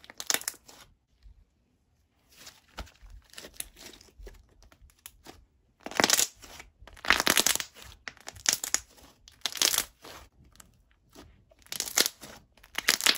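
Thick slime being squished and pressed by hand, giving crackling, popping bubble pops in irregular bursts, loudest about halfway through.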